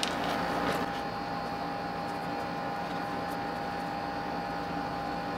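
Room air conditioner running with a steady hum and a constant mid-pitched tone. A short click comes right at the start.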